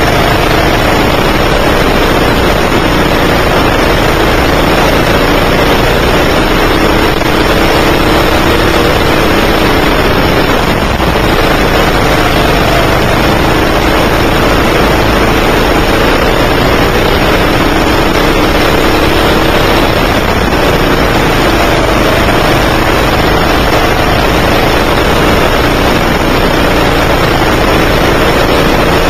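9 hp go-kart engine running hard close to the microphone, its pitch rising and falling a little through the corners, under a dense rushing noise.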